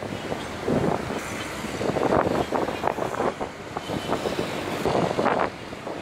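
Gusty wind buffeting the microphone over rough surf, with road traffic noise mixed in. The sound rises and falls in irregular swells.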